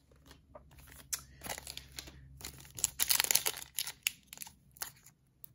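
Foil wrapper of a Pokémon Champion's Path booster pack crinkling and tearing as it is pulled open by hand, in a run of irregular rustles and crackles, loudest about three seconds in.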